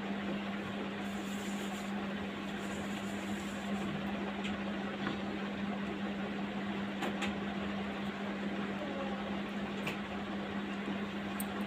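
Steady room hum: a constant motor-like drone at one pitch with an even hiss, and a few faint ticks.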